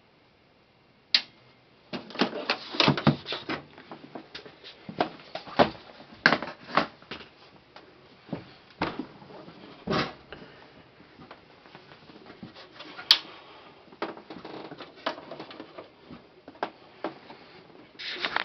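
Irregular clicks and knocks, a few sharp and loud, some in quick clusters, starting about a second in: hard objects being handled.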